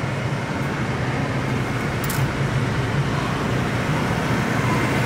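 Car in motion heard from inside the cabin: a steady low engine hum with road noise.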